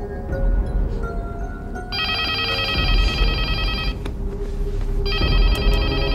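Telephone ringing twice, a rapidly pulsing electronic ring about two seconds long each time, over background music.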